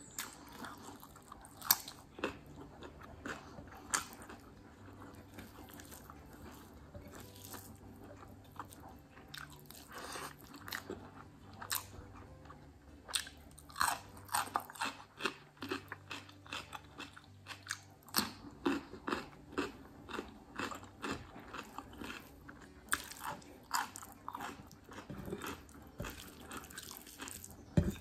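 Close-up chewing of rice and curry eaten by hand: wet mouth clicks, lip smacks and chewing. The smacks come sparsely at first and faster and closer together from about halfway through.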